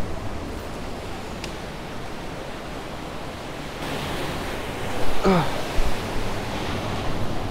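Steady rush of ocean surf and wind, swelling about four seconds in. About five seconds in, a brief cry slides downward in pitch.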